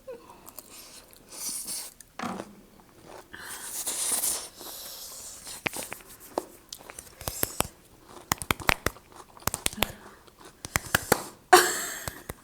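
Close-up eating sounds: biting into and chewing crisp cucumber with noodles, with a run of sharp crunchy clicks in the middle and a louder burst near the end.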